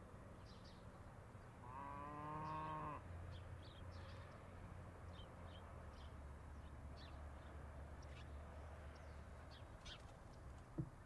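A cow moos once, about two seconds in, a single call lasting about a second. Small bird chirps and a low steady hum run faintly underneath, and there is a sharp click near the end.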